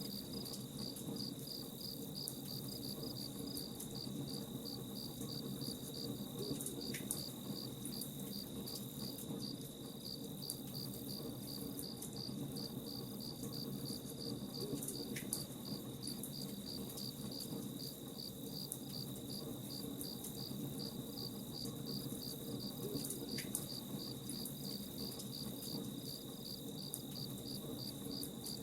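Campfire crackling, with scattered sharp pops over a steady low rush, under crickets chirping in an even, rapid rhythm.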